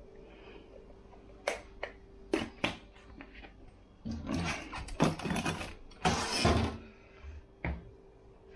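Kitchen handling noises: a few sharp clicks as seasoning shaker bottles are handled and capped, then two longer stretches of clattering and knocking as a wooden kitchen cupboard is opened and the containers are put in it. A faint steady hum runs under it all.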